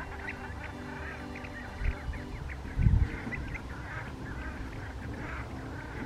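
A flock of waterbirds calling over one another: a dense chatter of many short calls, with a low thump about three seconds in.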